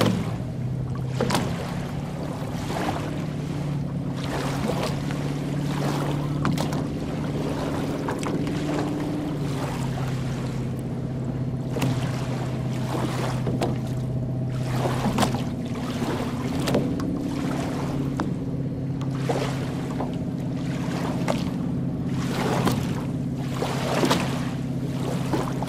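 Small lake waves lapping and splashing on a sandy shore every second or two, over the steady low hum of a boat engine whose pitch shifts slightly a few times.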